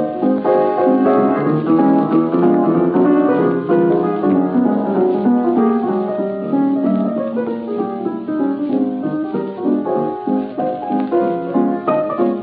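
Instrumental break in an old-time jazz song: piano playing a quick run of short notes, with no singing.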